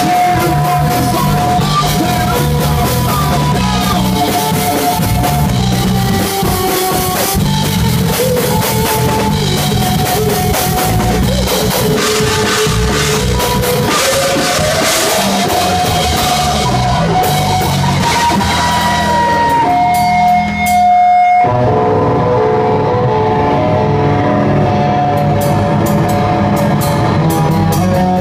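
Live rock band playing loud, with a drum kit pounding under distorted electric guitar and a sustained lead melody. About twenty seconds in the band cuts out for a moment, leaving one held note, then comes crashing back in.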